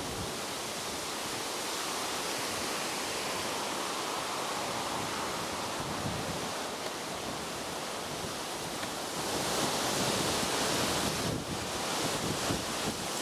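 Wind blowing across the microphone, a steady rushing noise that grows stronger about nine seconds in.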